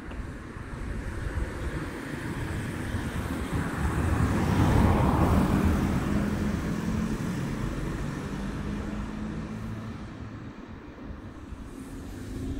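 A car passing on the street: tyre and engine noise swells to its loudest about four to five seconds in, then fades away.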